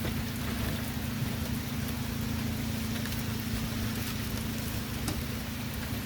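Steady rain falling, a fine even hiss with a few faint drop ticks, over a steady low hum.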